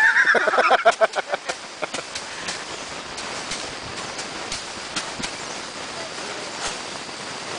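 Rice sheaves being hand-threshed, beaten against a threshing surface: sharp knocks at uneven spacing, about one or two a second, over a steady rustling haze. A burst of voices in the first second.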